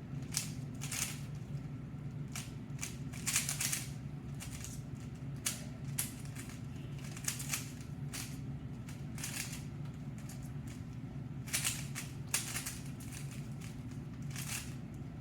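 A Rubik's cube being turned rapidly during a speed solve: irregular runs of plastic clicking and clacking as the layers turn, over a steady low hum.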